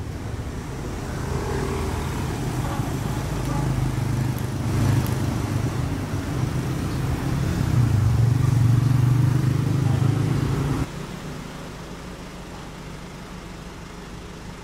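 Road traffic: a motor vehicle's engine hum grows louder over about ten seconds, then drops abruptly near the end to a quieter steady traffic hum.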